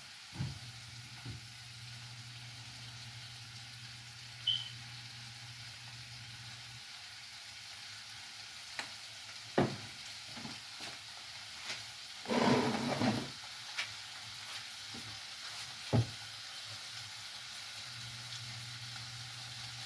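Small pieces of bacon frying and sizzling steadily in a pan, with a few knocks from a utensil and a louder burst of noise about twelve seconds in. A low hum sounds in the first third and again near the end.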